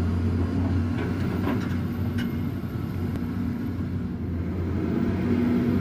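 An engine running steadily with a low, even hum, with a few faint clicks a second or two in.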